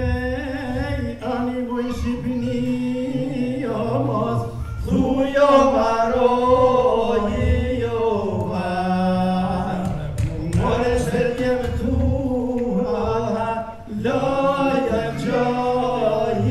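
A group of men singing a song together, with long held notes.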